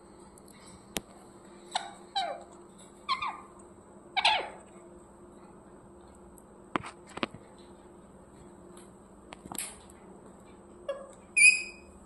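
Green parakeet giving short, scattered squawks and chirps, some sliding down in pitch, with a few sharp clicks in between. The loudest is a brief high-pitched call near the end.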